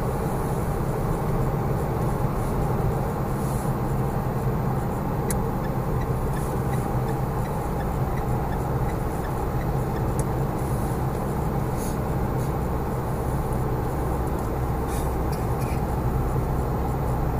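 A car driving steadily at highway speed, heard from inside the cabin: a continuous even blend of engine and tyre-on-road noise.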